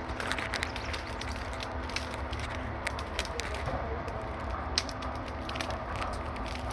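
Walking through dense undergrowth: leaves and stems brushing and rustling, with scattered sharp cracks of twigs snapping underfoot, over a low rumble of mic handling.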